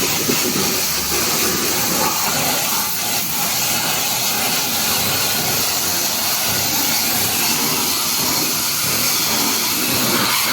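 Pressure washer spraying water in a steady, loud hiss.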